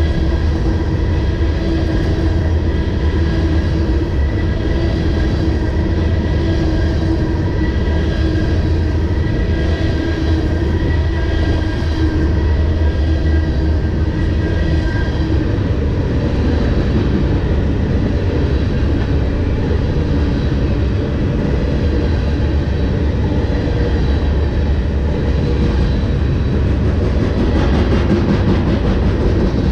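Freight train of loaded flatcars passing quickly, steel wheels on rail giving a loud, steady rumble. For the first half a steady high ringing tone sits over the rumble, then fades.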